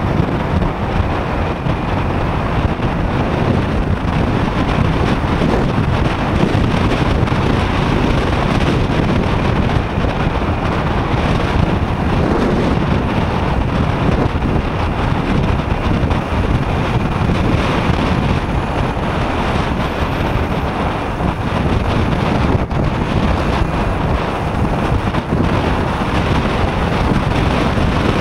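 Wind rushing over an SJ4000 action camera's microphone on a moving motorcycle: a loud, steady roar of wind and road noise that hides any engine tone.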